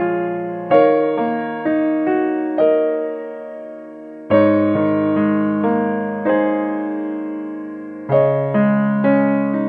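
Background piano music: slow piano chords and notes, each struck and left to fade, with fresh chords about a second in, just after four seconds and about eight seconds in.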